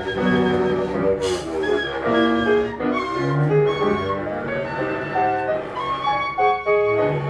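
Freely improvised music on bowed cello and keyboard: overlapping held notes that shift every half second or so, with a low sustained note entering a few seconds in. A short noisy sound cuts across about a second in.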